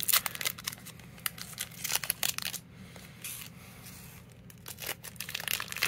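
Foil Pokémon card booster packs and a wrapper crinkling as they are handled, in a run of quick crackles that thin out in the middle and pick up again near the end.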